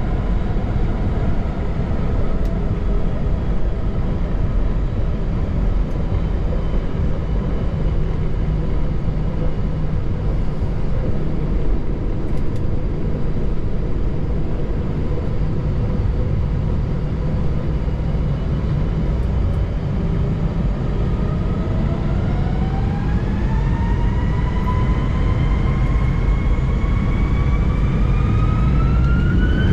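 Airbus A320 heard from inside the cabin: a steady low rumble while the aircraft rolls, then after about twenty seconds the engines spool up for takeoff, with several whines climbing steadily in pitch.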